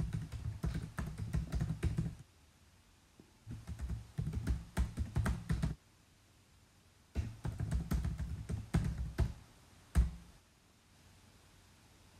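Typing on a keyboard: three quick runs of keystrokes with short pauses between, then one single harder keystroke near the end.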